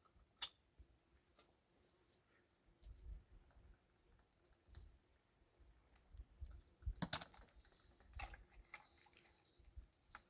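Scattered light clicks and knocks, as of small objects being handled, over near silence, with a short quick cluster of sharp clicks about seven seconds in.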